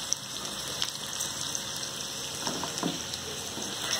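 Hot oil sizzling and crackling steadily as batter-coated cauliflower florets deep-fry in a kadai.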